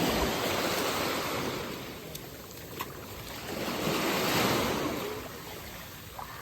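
Sea waves breaking and washing ashore, two surges of surf rising and falling, one at the start and another about halfway through.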